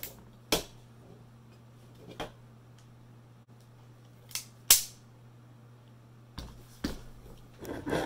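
Half a dozen sharp metallic knocks and clacks as a bronze post box door is opened and handled, the loudest about four and a half seconds in, with some rustling near the end.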